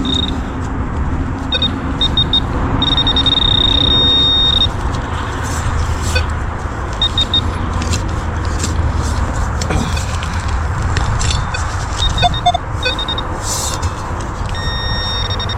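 High electronic tone from metal-detecting gear homing in on a buried target, sounding in short beeps and one steady stretch of about two seconds, over a low rumbling noise with a few scrapes and clicks.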